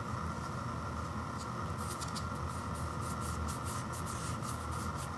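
Fingers rubbing and sliding over a frozen ice cream pint container as it is turned in the hands: a run of short, scratchy rubs from about a second and a half in, over a steady background hum.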